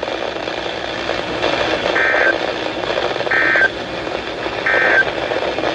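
Three short Emergency Alert System data bursts, the shrill two-tone SAME code, each about a third of a second long and about 1.3 seconds apart, over steady radio hiss. Bursts this short are typical of the end-of-message (NNNN) code that closes an alert.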